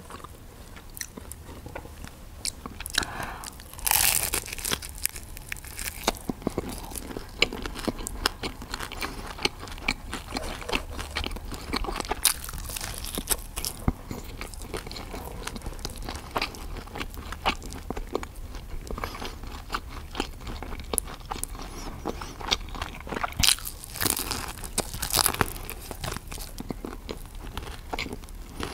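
Close-miked eating: biting into and crunchily chewing pizza and other food, with many small crisp clicks and a few louder crunchy bites about four seconds in and again near the end.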